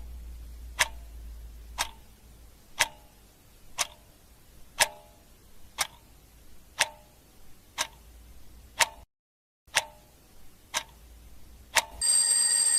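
Clock ticking sound effect, one tick a second, timing the search; near the end an alarm starts ringing as the time runs out.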